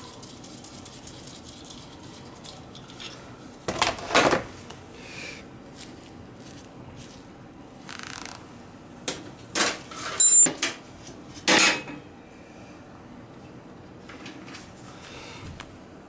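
Metal tools clinking and scraping against an oil burner's nozzle assembly as it is pulled and the brass nozzle worked loose with a wrench. Several sharp clanks, two about four seconds in and a cluster between about nine and twelve seconds, the loudest with a brief metallic ring.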